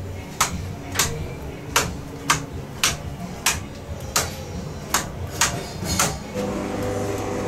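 Rotary selector switches on a Ferris wheel's control panel being turned one after another: about ten sharp clicks, roughly one every half second. A steady hum comes in about six seconds in.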